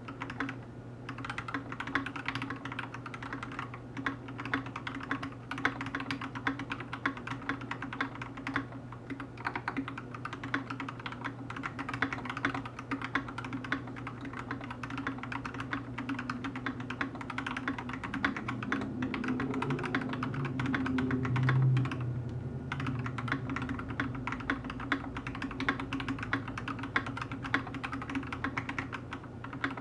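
Steady typing on a KBD67 MKII custom mechanical keyboard with lubed and filmed Gateron Black Ink V2 linear switches on a brass plate: a quick, uneven run of keystrokes with a brief pause about two-thirds through. A low background hum runs underneath and swells for a few seconds shortly before the pause.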